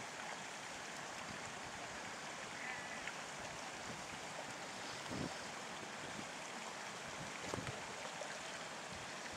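Steady rush of running water from a hillside stream, with a few faint knocks about five and seven and a half seconds in.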